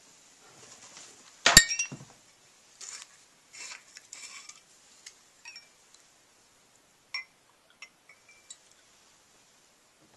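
Glassware clinking: one sharp, ringing clink of a stemmed glass about a second and a half in, then softer handling noises and a few light clinks of a glass bottle against the glass as it is poured into it.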